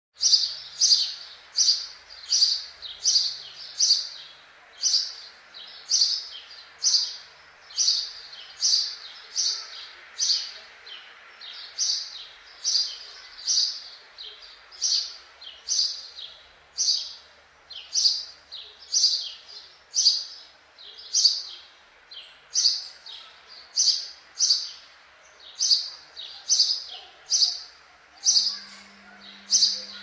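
Male house sparrow chirping over and over, short single chirps about twice a second.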